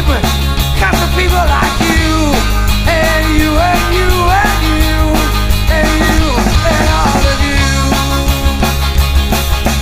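Rock band playing an instrumental passage: drums and bass under a lead melody line whose notes bend and glide.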